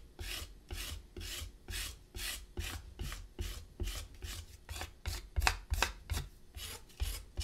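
Flat hand scraper scraping dried black underglaze off the surface of a slab-built clay vase, in repeated short strokes about two a second, taking the excess off to expose the inlaid Mishima lines.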